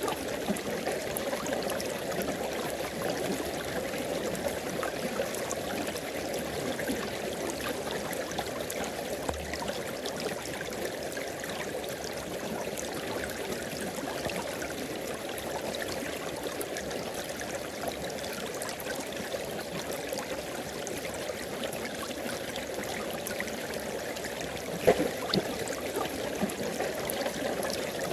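River water flowing steadily, an even rushing and gurgling with no change, with a single short sharp knock near the end.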